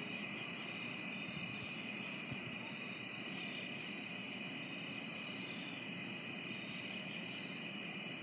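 Late-summer night chorus of crickets and other insects: a steady, high-pitched sound in several overlapping pitches that goes on without a break.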